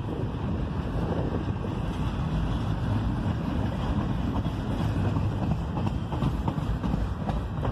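Double-stack intermodal container cars rolling past with a steady low rumble of steel wheels on the rails, and a few light clicks near the end. Wind buffets the microphone throughout.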